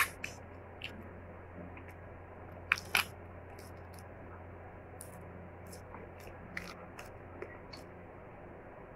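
Cooked crab shell cracking and clicking as it is pulled apart by hand, with chewing of the crab meat. The two loudest cracks come close together about three seconds in, followed by lighter clicks.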